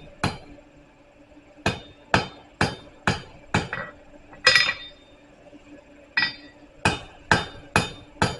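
Hand hammer striking hot steel on an anvil, about two blows a second in short runs with pauses, as a tapered bar is forged into an octagon section. One louder, ringing strike comes about midway.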